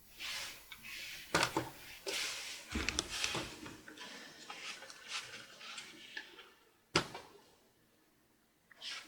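Small scrapes, taps and clicks of a tiny flathead screwdriver picking at a screw-cover sticker on a laptop's plastic screen bezel, with one sharp click late on.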